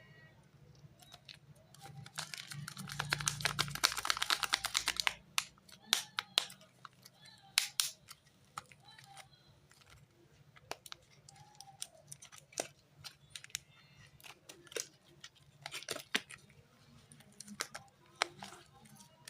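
Soap packaging being handled and unwrapped: a few seconds of rapid crackling and crinkling about two seconds in, then scattered taps and clicks.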